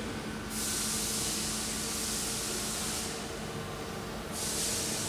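A powered-up 1989 Amada Aries 245 hydraulic CNC turret punch hums steadily. Over the hum come two bursts of hiss: one about half a second in that lasts roughly two and a half seconds, and a shorter one near the end.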